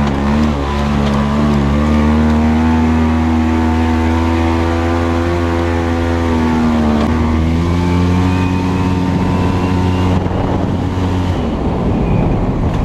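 Motor vehicle engine running steadily under load on an off-road drive. Its pitch shifts down about seven seconds in, as with a gear change, and near the end the steady tone breaks into rougher, rumbling noise.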